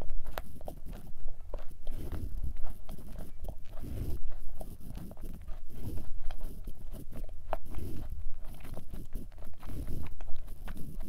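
Close-up chewing of a mouthful of thick chocolate chip cookie, with soft thuds about once a second and wet clicks of the mouth in between.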